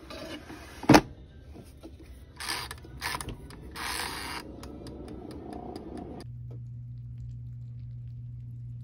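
Manual air fryer being handled: a loud clunk of the basket about a second in, a few brief scraping noises, then the mechanical timer dial clicking as it is wound. In the last few seconds there is only a steady low hum.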